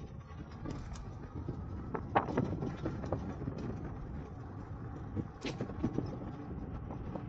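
E-bike rolling along a cracked asphalt path: a steady low rumble from the tyres and the ride, broken by a few sharp knocks and rattles as the bike goes over cracks, the loudest about two seconds in and another about five and a half seconds in.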